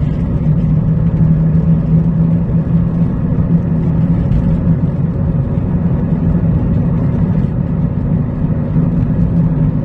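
Steady droning roar with a strong low hum while a Nissan Note NISMO e-POWER is driving. The roar comes from a wheel hub bearing that is failing.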